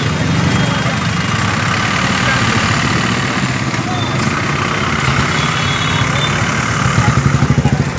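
Vehicle engines idling close by in stop-and-go street traffic. The nearest engine gives a steady, rapid low pulsing that grows stronger near the end.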